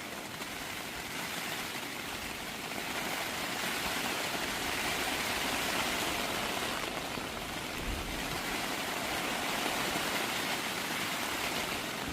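Steady rushing noise with no distinct tones, swelling gently in the middle and again near the end.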